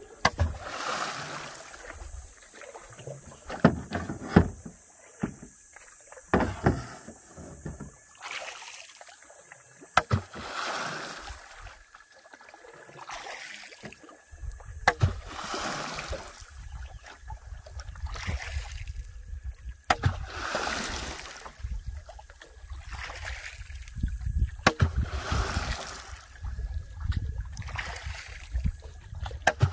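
Water splashing and sloshing around a small fishing boat in repeated surges every few seconds, with a few sharp knocks scattered through.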